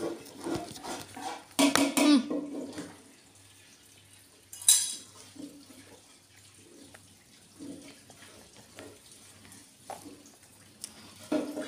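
Quiet handling sounds while a baby is fed in a plastic high chair: a short vocal sound near the start, one sharp knock a little under five seconds in, then faint small clatters.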